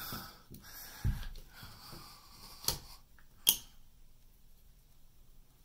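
Quiet hand-handling noise: a soft bump about a second in, then two sharp clicks, the second the loudest.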